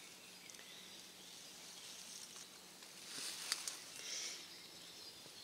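Caterpillar droppings (frass) falling from the forest canopy onto leaves and leaf litter: a few faint, sharp ticks over a soft hiss, like light rain but not rain.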